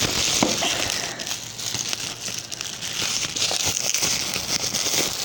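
Crinkling and rustling of a package being handled and opened, with scattered small crackles.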